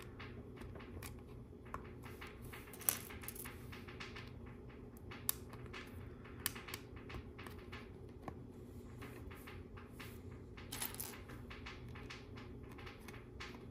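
Light plastic clicks and clatter as black LEGO Technic pins are handled and pressed into the holes along the edge of a tan LEGO baseplate frame. Short sharp clicks come irregularly, a few of them louder, with a small cluster near the end.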